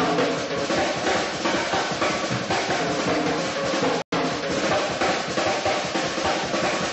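Music with a busy drum beat, snare and bass drum prominent under pitched instruments. The sound drops out completely for a split second about four seconds in.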